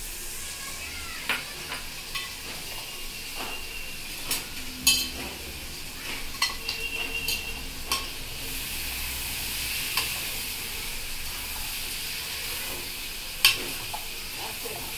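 Chicken pieces sizzling as they fry with spices in a steel pan, with a steady hiss. A steel spoon stirs them, scraping and clinking sharply against the pan every second or two.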